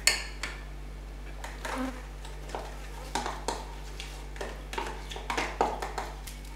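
Irregular light clicks and knocks of bowls and a plastic food container being picked up, handled and set down.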